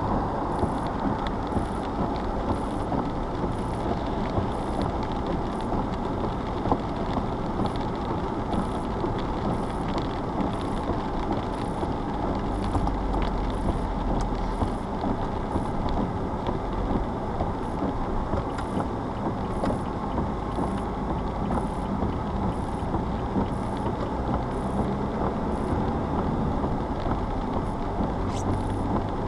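Steady running noise of a vehicle driving at low speed on a wet road, engine and tyre noise heard from inside the cab.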